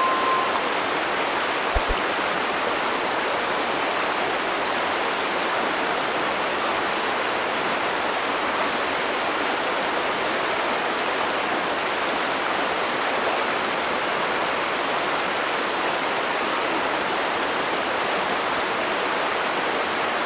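Mountain stream rushing steadily over rocks, an even, unbroken water noise. There is a brief whistle-like note right at the start and two soft low knocks about two seconds in.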